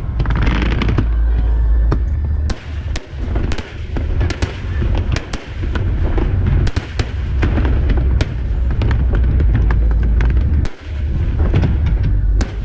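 Aerial fireworks display: shells bursting in many sharp, irregular bangs over a continuous deep rumble of booms.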